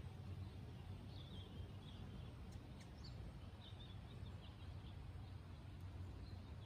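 Faint bird chirps, short and high, coming in scattered clusters over a steady low background rumble.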